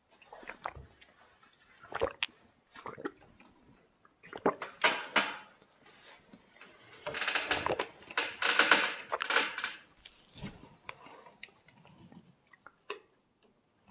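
A man drinking: small clicks and handling noises, with a denser stretch of liquid and swallowing noise about seven to ten seconds in.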